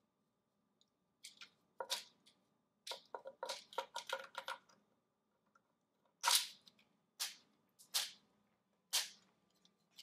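Sharp plastic clacks and taps as an African grey parrot bites and tugs at a loose plastic dishwasher strip. A quick run of taps comes a few seconds in, then four louder clacks about a second apart.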